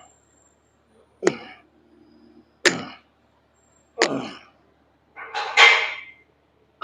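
A man's short, forceful breaths out or grunts on each repetition of a weight exercise, about one every second and a half, then a longer, hissier breath out near the end.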